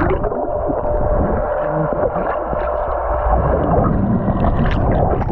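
Wave pool water sloshing and churning close to the camera, a steady, loud, muffled noise.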